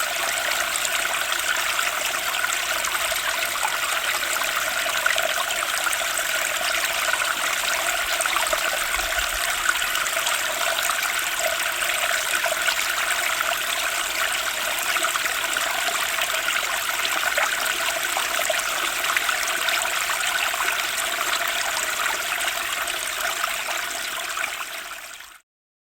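Turbulent spring stream rushing steadily, fading out and stopping near the end.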